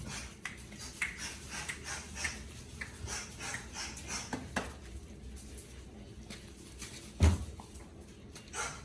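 Young puppies moving about and playing on a hard floor: scattered light clicks and taps, with one louder thump about seven seconds in.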